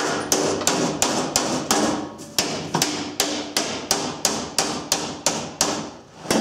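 Hammer blows on a steel mower seat pan, about three sharp strikes a second, each with a short metallic ring. There is a brief pause before a last strike near the end.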